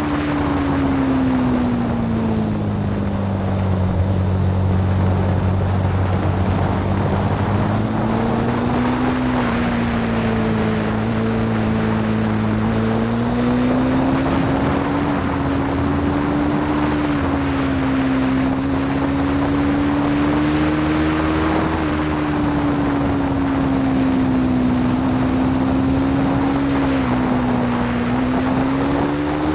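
Aprilia Tuono V4's V4 engine running hard on track, its pitch rising and falling slowly, with wind rushing over the microphone.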